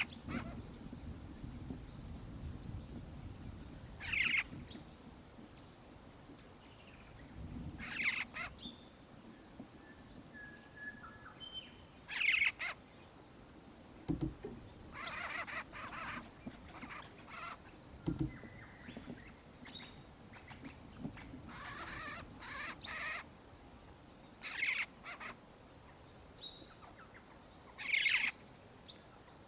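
Birds calling: short raspy calls repeated every few seconds, with a few brief thin whistles between them.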